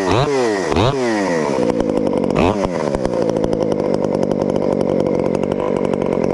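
Modified Craftsman two-stroke chainsaw with a homemade muffler and cold air intake, blipped through several quick revs of the throttle, then held wide open at a steady high pitch.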